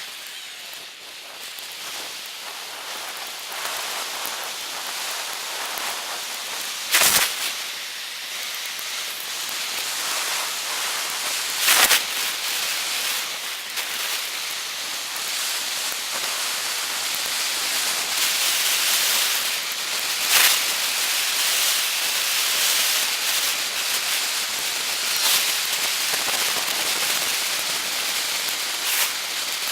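Steady rushing noise that grows louder through the first half, broken by a few sharp knocks.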